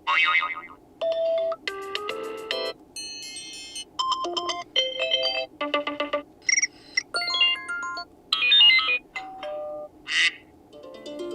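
iPhone 15 Pro default iOS ringtones played in quick succession. There are about a dozen short snippets, each under a second and each a different melodic tune, cut off with brief gaps between them.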